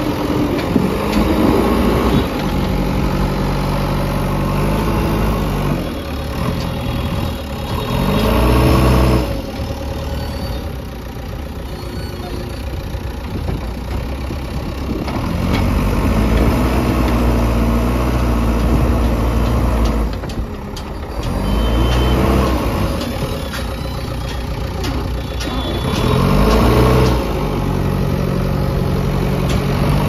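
JCB 3DX backhoe loader's diesel engine running as the loader works a sand pile, revving up and dropping back three times.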